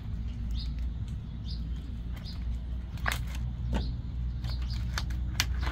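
Short, high animal chirps, repeated about once a second, with a few sharp clicks about halfway through and again near the end, over a steady low rumble.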